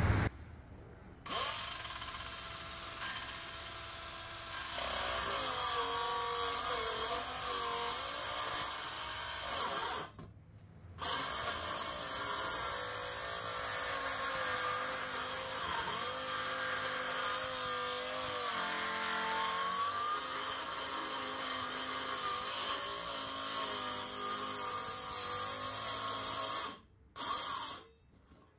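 Bauer cordless circular saw cutting through rotted boat-deck wood, the motor's pitch dipping and rising as it loads in the cut. It starts about a second in, stops briefly about ten seconds in, runs on, then stops near the end after one short final burst.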